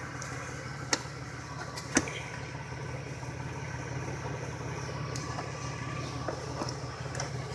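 Honda 400EX ATV's single-cylinder four-stroke engine idling steadily after being coaxed into starting, with two sharp clicks about one and two seconds in.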